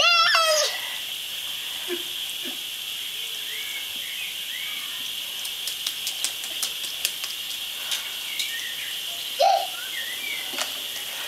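A toddler gives a loud squeal at the start and a short shout about nine and a half seconds in, over the steady hiss of a toy garden sprinkler spraying water.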